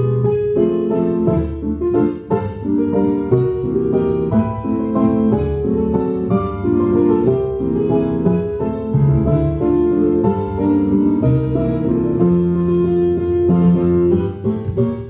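Piano music: a quick run of struck notes over lower, held bass notes.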